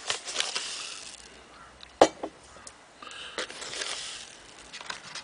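A teaspoon digging into a paper bag of granulated sugar, the paper rustling and the grains hissing, with one sharp click about two seconds in.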